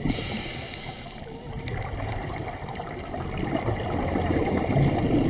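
Underwater sound of a scuba diver's breathing: a brief hiss at the start, then bubbling and gurgling from exhaled air that grows louder over the last couple of seconds.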